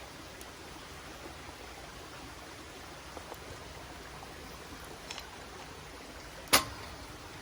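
Steady rush of a river, with faint crackles from a wood campfire and one sharp, loud pop from the fire about two-thirds of the way through.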